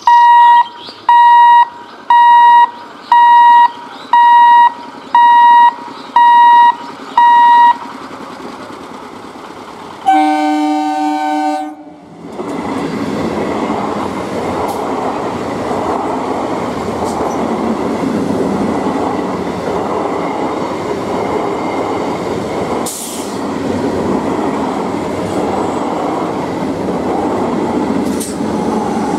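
Loud electronic warning beeps, about one a second for some eight seconds, then an EMU local train's multi-tone horn sounds for about two seconds. After a short break an EMU train speeds past close by with a steady rumble of wheels on rail, with two sharp clicks near the end.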